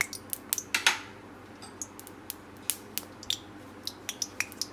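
Cooking oil heating in a hot steel kadai, crackling with scattered, irregular sharp pops, a few a second and thickest in the first second.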